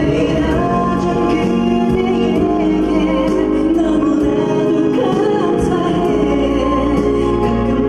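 A male singer singing a song live into a handheld microphone, with instrumental accompaniment.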